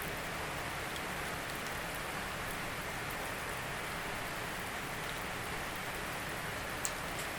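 Steady rain falling, an even hiss with scattered drop ticks, one a little sharper near the end.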